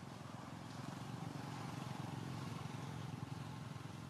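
A low engine rumble, swelling a little through the middle and easing off near the end.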